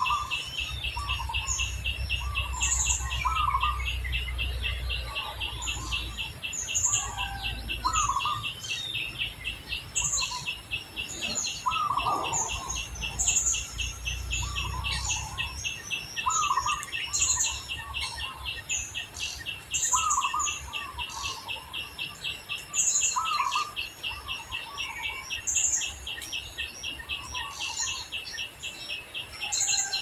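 Birds chirping: repeated short calls at a higher and a lower pitch, over a continuous fast, even trill. A low rumble underneath stops about halfway through.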